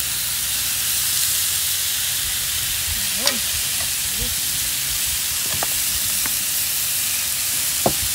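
Thin-sliced meat and enoki mushrooms sizzling steadily on a hot round grill pan on a portable stove. A few sharp clicks cut through, the loudest about three seconds in and near the end.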